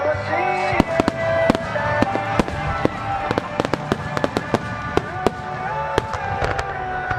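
Starmine fireworks barrage: aerial shells bursting in a quick run of sharp bangs and cracks, thickest in the middle and stopping shortly before the end, over music.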